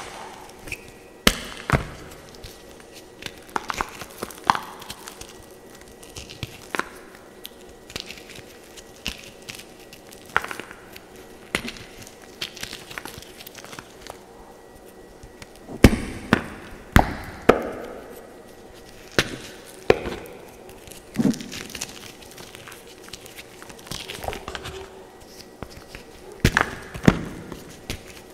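Blue-dyed gym chalk and crumbled cloud soap being crushed and squeezed by hand: irregular dry crunching and crumbling, with sharp snaps now and then as pieces break.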